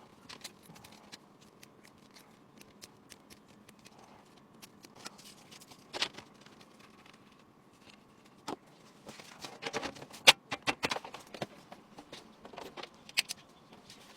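Scattered light clicks and taps of small hardware being handled during a PC build, with a quick run of clicks about two-thirds of the way through.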